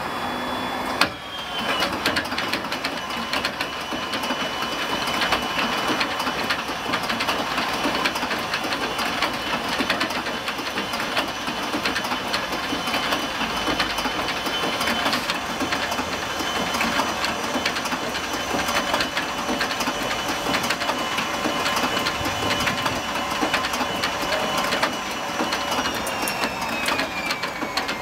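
The starter of an Ilyushin Il-14T's right-hand Shvetsov ASh-82T radial engine engages with a sharp clunk about a second in. It then turns the cold engine over without firing, a steady whine over fast mechanical clattering as the propeller turns slowly. Near the end the whine falls in pitch as the cranking winds down.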